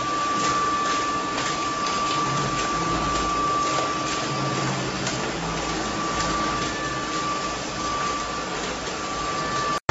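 Wall rendering machine running with a steady mechanical whir and a constant high whine over a low hum.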